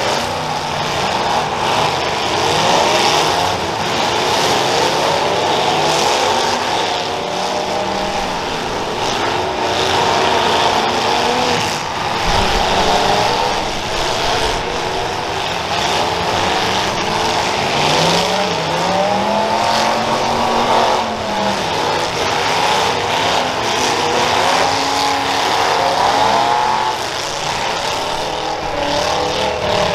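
Several demolition derby cars' engines revving at once, their pitches rising and falling over one another.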